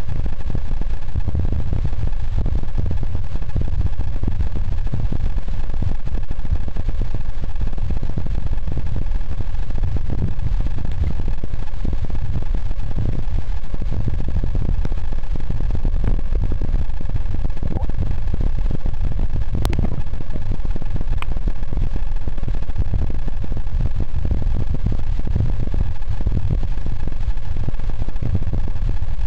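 Steady low rumble of water moving over a camera held under the water, with two sharp clicks about 19 and 21 seconds in.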